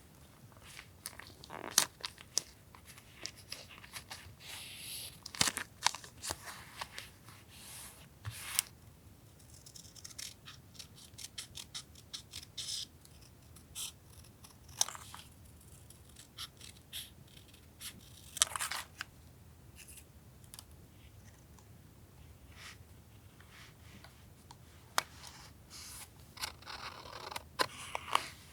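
Paper being cut and handled for collage journaling: scattered scissor snips, taps and short paper rustles, with a few longer rustles about four to five seconds in and near eighteen seconds.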